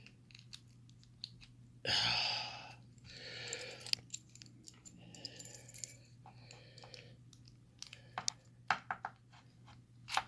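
Small metal clicks and scrapes of a Nu-Set padlock being worked apart with hand tools, with a louder rasping scrape about two seconds in. A faint steady hum runs underneath.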